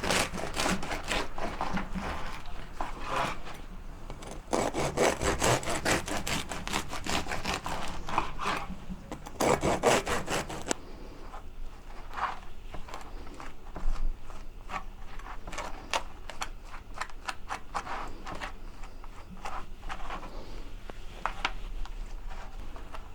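A knife sawing through a loaf of rye bread in quick back-and-forth strokes, then, about eleven seconds in, lighter scraping as a knife spreads butter on the slices.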